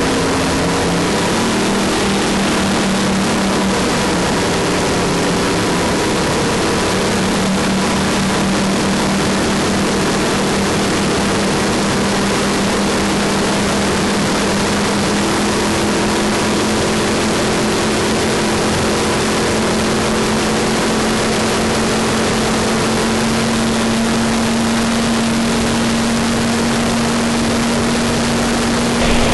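Twin-turbocharged 515 cubic-inch big-block Merlin V8 of a 1953 Studebaker land-speed car running hard at speed on a record pass, heard from inside the car under a heavy rush of wind and salt-surface noise. The engine note holds steady and creeps slightly higher in pitch as the car keeps gaining speed.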